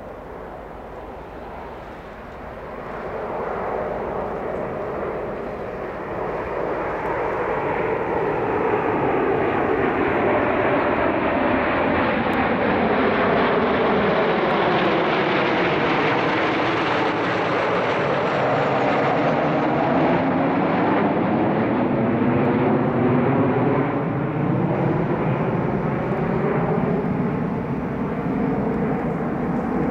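Formation of six Kawasaki T-4 jet trainers passing overhead, their turbofan engines making a steady jet roar. It builds over the first several seconds and is loudest and brightest around the middle as the formation passes, then eases a little. Through it runs a sweeping, phasing whoosh.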